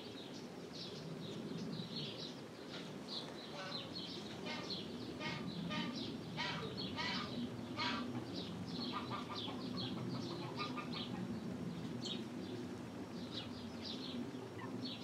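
Many birds calling: a dense series of short, high chirps throughout, with lower, stacked calls mostly in the middle, over a steady low rumble.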